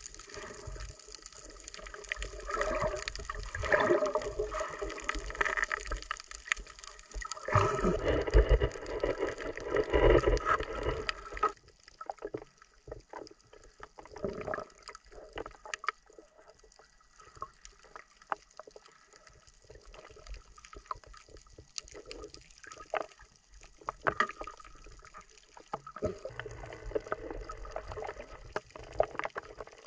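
Underwater gurgling and churning of water around a submerged camera, louder for the first ten or so seconds, then quieter with many scattered sharp clicks.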